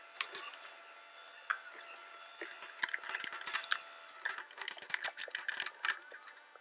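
Hand tools and wooden boards being handled on a workbench: a run of small clicks, taps and knocks, sparse at first and busiest in the second half.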